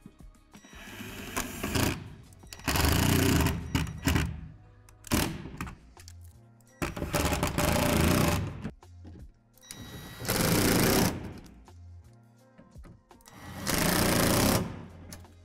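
Cordless drill/driver running in about six short bursts of roughly a second each, driving screws through a shelf's tabs into plastic wall panels. Background music plays underneath.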